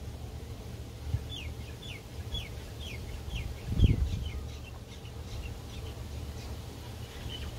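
A bird calling: a run of about a dozen short, high notes, each sliding downward, a few per second. Under it is a low rumble, with one brief louder low thump about four seconds in.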